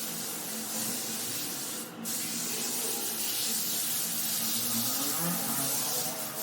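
Brush scrubbing a wet, foamy carpet: a steady hissing wash, broken briefly about two seconds in.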